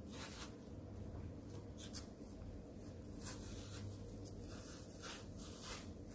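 A kitchen knife scraping and carving the flesh out of a halved, over-mature bottle gourd on a wooden board: a series of faint, short scrapes. A low steady hum runs underneath.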